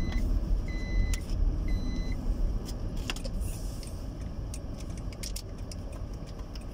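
Steady car-cabin rumble of a running vehicle, with three short electronic beeps about a second apart near the start. After that come small crisp clicks and crackles of a plastic sachet being handled and opened.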